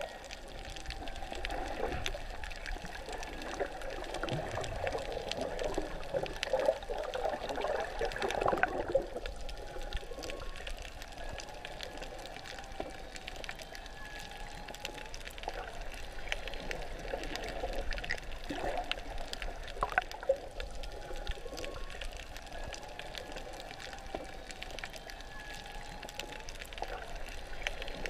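Water swirling and bubbling, heard underwater and muffled, busiest for the first eight or nine seconds and then calmer. A few sharp clicks stand out, the loudest about twenty seconds in.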